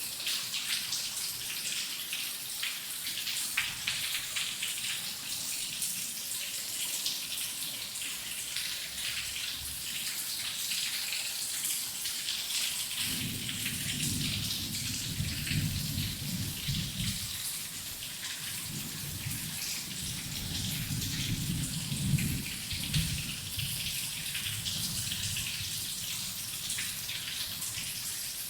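Heavy rain falling steadily, with many close drops pattering. About halfway through, low rolling thunder rumbles in waves for around ten seconds, then dies away.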